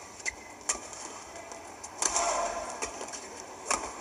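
Badminton racket strings hitting a feather shuttlecock during a rally: several sharp hits, roughly a second apart, over the hum of the arena hall.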